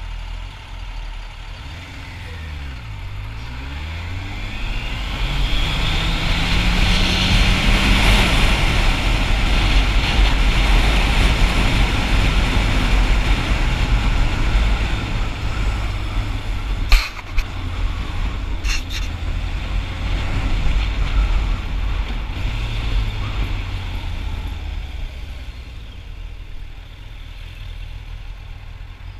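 Motorcycle on the road: the engine note dips and comes back up, then climbs as it accelerates, under a rush of wind that builds, holds for several seconds and eases off. Two sharp clicks a little over halfway through, about a second and a half apart.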